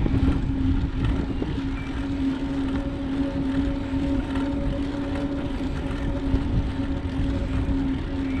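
Wind rushing over the microphone of a moving bicycle, with a steady low hum underneath.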